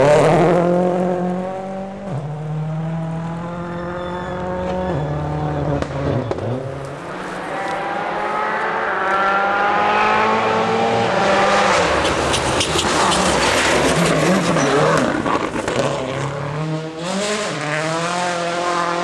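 2.0-litre turbocharged four-cylinder World Rally Cars at full speed on a gravel stage. The engine note falls as one car passes, then climbs in steps through gear changes as the next approaches, with a loud rush of noise around the middle as it goes by and another engine rising near the end.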